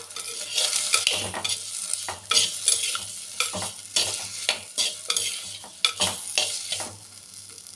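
Perforated steel ladle stirring and scraping tomatoes and shallots frying in oil in a clay pot: irregular scrapes and knocks of the ladle over a steady sizzle.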